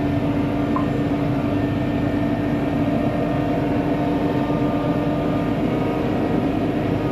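Steady engine drone at a constant pitch from a four-wheel-drive vehicle and a ULV mosquito fogger's small engine running together.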